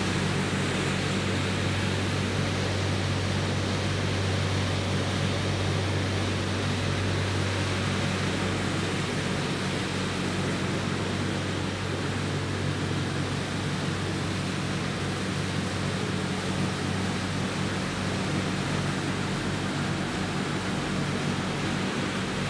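Machinery of a circuit-board recycling line running steadily: a constant low hum under an even rushing noise.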